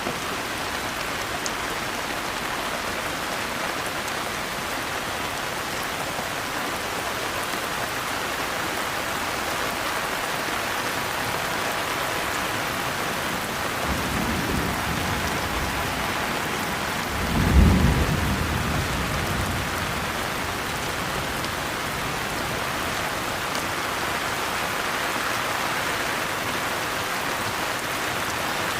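Steady heavy rainfall hissing, with a roll of thunder about halfway through: a low rumble builds, then a louder crack-like peak that rumbles away over a couple of seconds.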